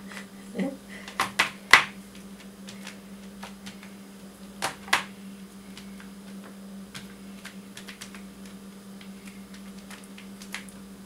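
Bare foot dabbing paint onto a sheet of paper taped to the floor: a few sharp taps and crackles of the paper in the first two seconds and again around five seconds, over a steady low hum.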